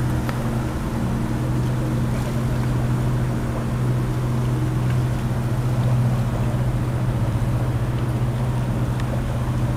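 Boat engine running with a steady low drone.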